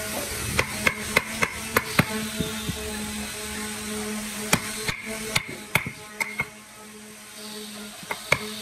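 Wooden mallet striking a wooden-handled chisel, chopping a mortise into a hardwood block: sharp knocks about three a second in two runs, a pause near the end, then a couple more strikes.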